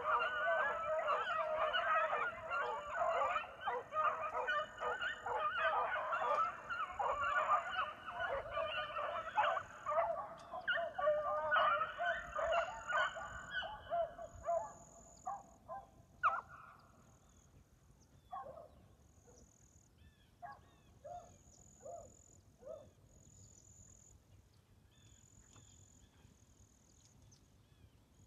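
A pack of beagles baying on a rabbit track, many voices overlapping in a full chorus, then thinning to scattered single bays about halfway through and falling quiet near the end.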